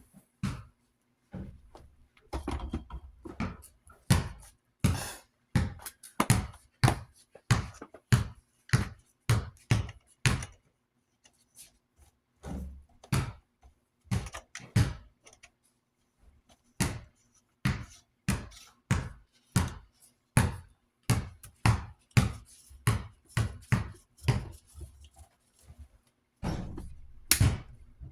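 A run of sharp knocks and clunks, mostly one or two a second, broken by short pauses, from the metal parts of an old desk fan being handled and worked on. A faint steady hum sits underneath.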